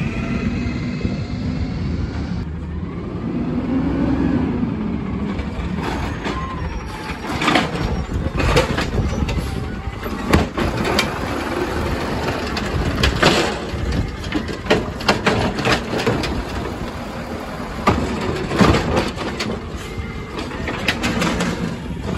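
A 2012 Peterbilt 320 natural-gas garbage truck runs as it pulls up to the curb, then its Amrep automated side-loader arm lifts and dumps a cart. From about six seconds in there is a string of sharp knocks and bangs as the cart and lid hit against the hopper, over the steady running of the truck.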